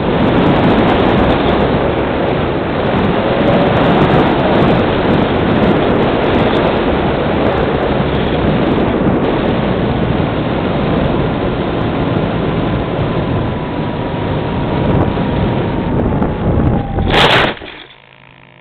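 Airflow rushing over the onboard camera microphone of a Multiplex Cularis RC glider in flight, with a faint whine slowly dropping in pitch underneath. About 17 seconds in, a single sharp thump as the model comes down in tall grass, after which the rushing stops and only a low hum remains.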